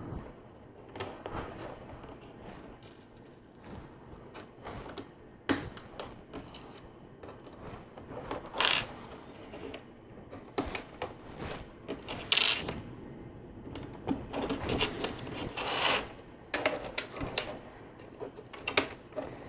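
Small plastic LEGO bricks clicking and tapping as they are picked up and pressed together, in irregular sharp clicks with a few louder snaps.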